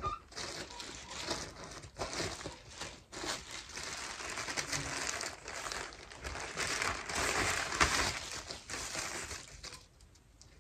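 Crinkling and rustling of packaging and clothing being handled, with irregular small clicks and scrapes that grow louder about seven seconds in and then die down near the end.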